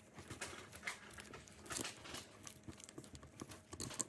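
Scattered small clicks and rustles of hands fitting parts into a BMW VANOS unit during reassembly.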